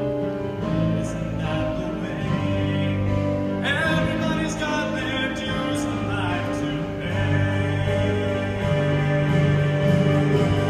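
Show choir singing, many voices holding chords that change every second or two.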